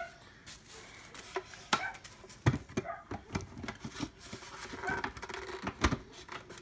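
Hard plastic parts of a Marineland Magna Flow 360 canister filter knocking and clicking as the motor head is worked down onto the canister. The knocks are scattered and irregular, the loudest about two and a half seconds in and near the end.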